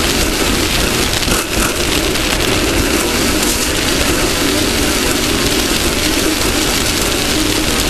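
Off-road race car running at speed: engine noise under a loud, steady rush of wind and dirt against the car.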